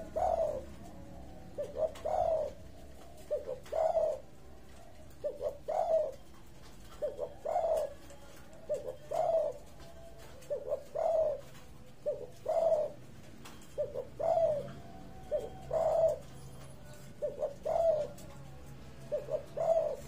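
Spotted dove of the silver colour form cooing steadily: a short stuttered lead-in followed by a longer coo, repeated about every two seconds, a dozen times. It is calling freely again, which the owner takes as a sign it is healthy again.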